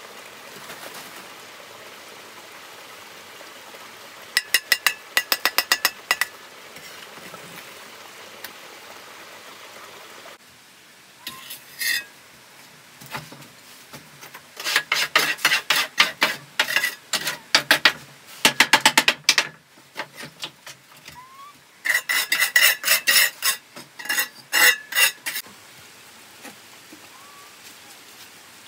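Quick runs of ringing metallic clinks and taps, a metal tool striking something hard, in four bursts of a few seconds each.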